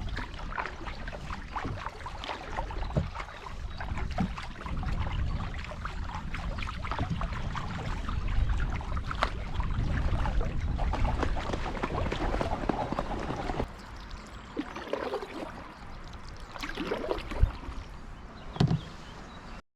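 Canoe paddles dipping and pulling through river water, with splashes and drips, over a steady low rumble. The sound becomes quieter about two-thirds of the way through.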